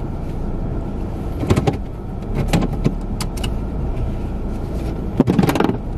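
Car driving, heard from inside the cabin: a steady low road and engine rumble, with a few short clicks and knocks scattered through it.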